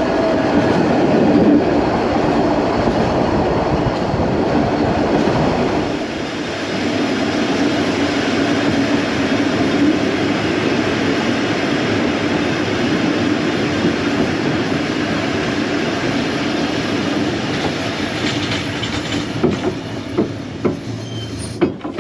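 Isle of Man Steam Railway narrow-gauge coach running along the track: a steady rumble of wheels on rail with some clickety-clack. It gets quieter near the end, with a few sharp knocks.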